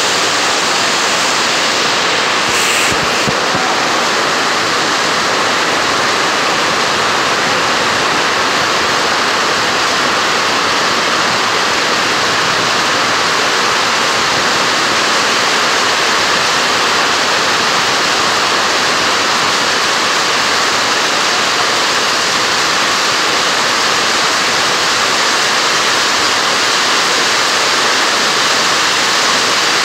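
Heavy rain on a sheet-metal roof: a loud, steady hiss.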